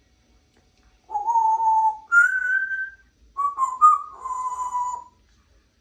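Congo African grey parrot whistling three phrases: a steady lower note, then a higher note that rises slightly, then a few short notes that run into a long held note.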